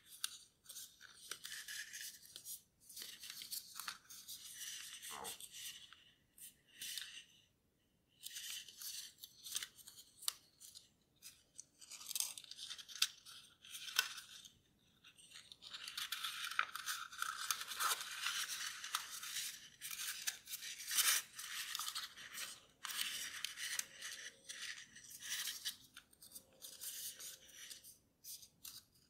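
Origami paper being folded and creased by hand: bursts of crisp rustling and crinkling, with short pauses between folds.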